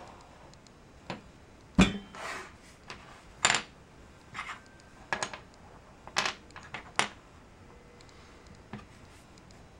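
Wooden burr puzzle pieces clacking against each other and the wooden tabletop as they are picked up and set down: about ten light knocks at uneven intervals, the loudest about two seconds in.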